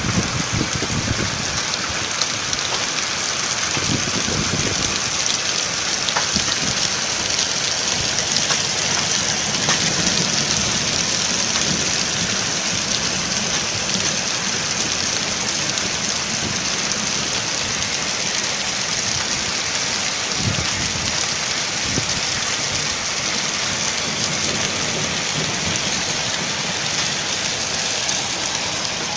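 Heavy rain mixed with hail pouring down: a dense, steady hiss of water striking surfaces, with scattered sharp ticks of hailstones hitting.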